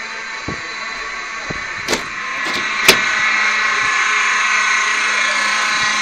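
A school fire alarm sounds a steady, continuous buzzing tone, which the uploader says is malfunctioning. It grows louder about two and a half seconds in. Over it come soft footsteps about once a second and two sharp clacks, about two and three seconds in.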